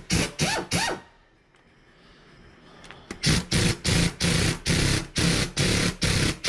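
Pneumatic air ratchet run in short trigger bursts on the thermostat housing bolts: three quick whirring bursts, a pause of about two seconds, then a regular run of short bursts about three a second.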